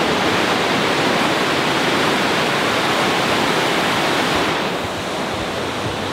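Water released through a dam's open gates, churning and foaming in the tailwater below: a steady, loud rushing that eases slightly after about four and a half seconds.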